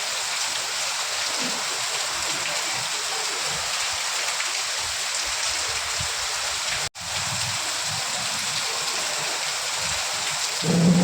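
Steady rain falling, an even hiss with no thunder, that cuts out for an instant about seven seconds in. A short low hum starts right at the end.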